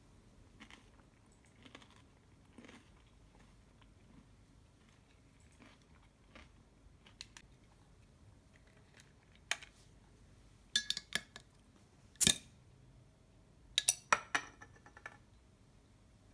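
A string of sharp clicks and knocks from small hard objects being handled: faint taps in the first half, then louder clusters about ten and fourteen seconds in, with the single loudest knock between them.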